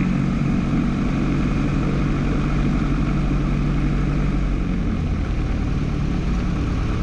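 Single-engine light aircraft's piston engine running steadily at low power on the ground, propeller turning, as the aircraft taxis. Its low note shifts slightly about five seconds in.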